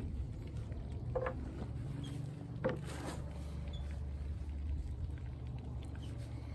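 Steady low rumble of traffic on a nearby road, with two short chicken calls about one and three seconds in.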